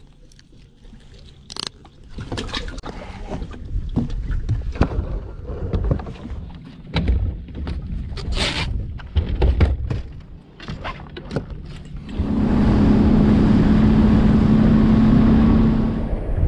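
Irregular knocks and handling noises on a fishing boat's deck, with wind gusting on the microphone. About twelve seconds in, a loud steady motor drone with a low hum takes over and stops shortly before the end.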